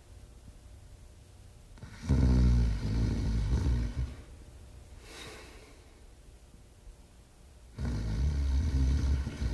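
Artois hound snoring in its sleep: two low snores of about two seconds each, one about two seconds in and another near the end, with a softer airy breath out between them.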